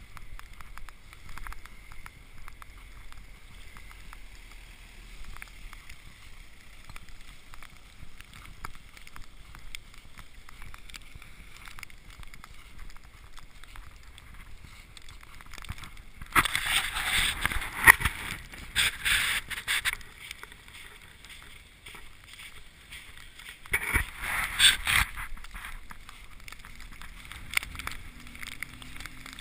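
Footsteps crunching and squelching through snow and slush, small irregular crunches throughout. Two louder rushing hisses break in, one about sixteen seconds in lasting about four seconds and a shorter one about twenty-four seconds in, and a low engine hum comes in near the end.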